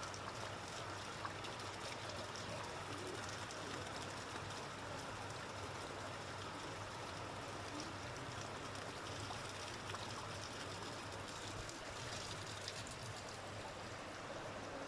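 Spring-fed stream of running water flowing steadily, an even rushing with no breaks.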